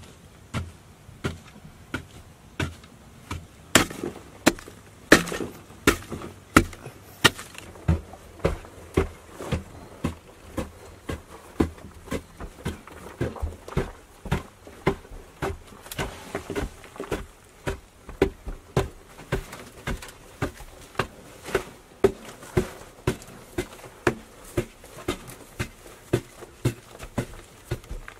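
Hand digging tool chopping repeatedly into packed earth, a steady rhythm of sharp blows a little under two a second.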